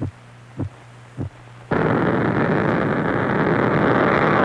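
A heartbeat thumping a little under twice a second over a low hum, then about a second and a half in the loud, steady noise of the Mercury-Atlas rocket's engines at liftoff cuts in suddenly and covers it.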